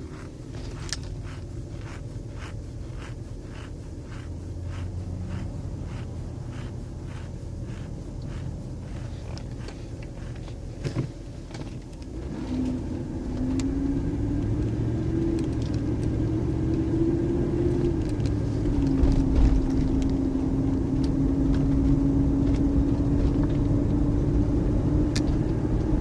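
Lincoln Aviator's 4.6-litre V8 idling, heard from inside the cab, with an even ticking about twice a second. About twelve seconds in it pulls away under light throttle, and the engine note rises and then holds. The owner suspects an exhaust leak or a faulty EGR valve behind its rough idle and knocking.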